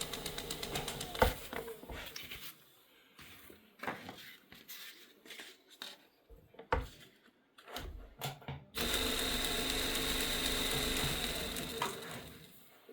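Motor of a belt knife-sharpening machine running during deburring, dying away in the first couple of seconds, followed by scattered clicks and knocks of handling. About nine seconds in the machine switches on again with a steady whine, runs for about three seconds, then winds down.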